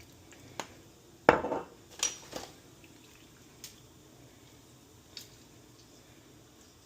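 A utensil clinking and knocking against a bowl while mixing the chili sauce: about six sharp, separate clinks, the loudest about a second in, then sparser ones.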